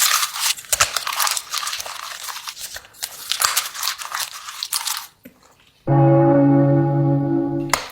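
Close-up crunching and chewing of a crunchy food, dense and loud for about five seconds. After a brief pause, a loud steady held tone sounds for about two seconds.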